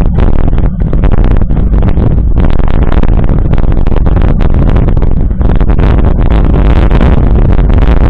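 Wind buffeting a bike-mounted action camera's microphone while riding, a loud, steady deep rumble, with the mountain bike's knobby tyre rolling over a gravel dirt road.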